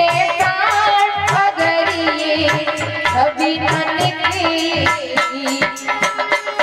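Hindi devotional bhajan: a woman singing a gliding melody over a steady hand-drum beat and instrumental accompaniment. Her voice drops out about five seconds in while the drumming carries on.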